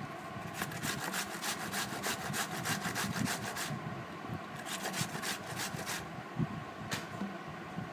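Cucumber grated on a flat stainless-steel grater plate: quick rasping strokes, several a second, in two runs with a pause of about a second between them, then one lone stroke near the end.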